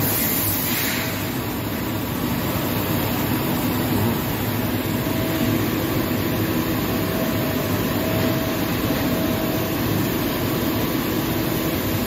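DMG Mori NTX2000 turn-mill machining center running a job with flood coolant spraying inside the enclosure: a steady hiss of spray over the hum of the machine's drives, with a few steady tones in it. The hiss is louder in the first second.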